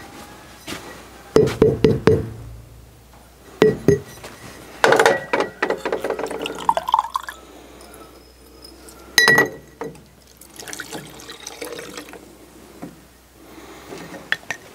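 Diesel fuel being poured from a tractor's fine fuel filter housing into a glass jar: several ringing clinks of glass and metal, and in the middle a trickle of pouring liquid that rises in pitch as the jar fills. Another sharp clink comes about nine seconds in.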